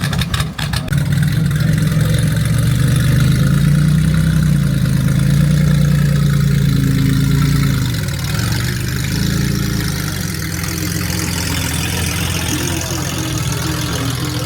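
Car engine running close by: a few sharp clicks as it catches in the first second, then a loud steady idle that swells a little and eases down about eight seconds in.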